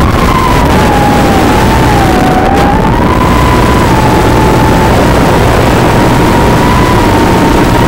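FPV quadcopter's motors and propellers whining as heard on board, the pitch wavering up and down as the throttle changes, over a loud steady rush of wind and vibration noise.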